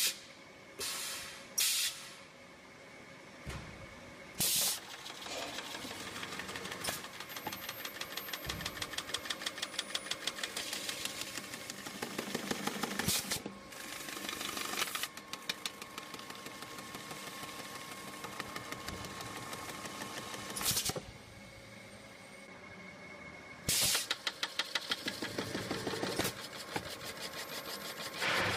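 AutoSeamer automatic gasket-rolling machine running as its rollers turn a round steel duct fitting to flange the edge and roll in a rubber seal. It makes a fast, even rattling clatter, broken several times by short, loud bursts of air hiss.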